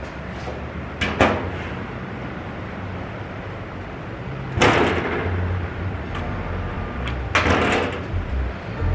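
Harbor Freight stud welder firing three times, each a short burst of about half a second as a pull stud is welded onto the sheet-metal tailgate, over a steady low hum.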